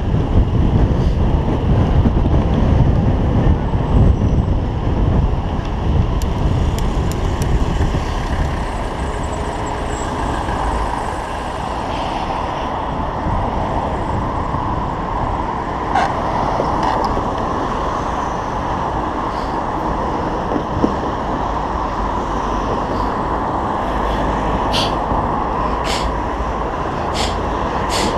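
Road and traffic noise heard from a moving bicycle in city streets, with a low rumble of wind on the microphone that is heaviest in the first few seconds. Several sharp clicks come near the end.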